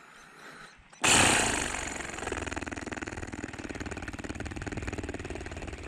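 Spinning fishing reel being wound: it starts suddenly and loudest about a second in, then settles into a fast, even mechanical whir of the reel's gears.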